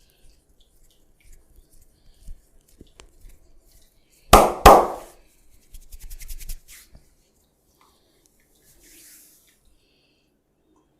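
Two loud, sharp slaps about a third of a second apart during a barber's massage, followed a second later by a quick run of faint clicks.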